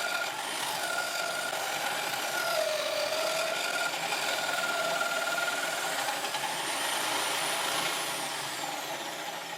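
Homemade disc sander running with a piece of wood pressed against its freshly re-stuck sandpaper disc: a steady grinding hiss over a wavering motor whine, easing off near the end.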